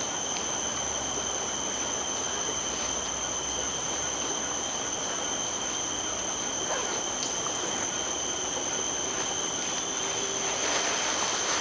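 Forest insects calling in a steady, high-pitched chorus of two unchanging tones.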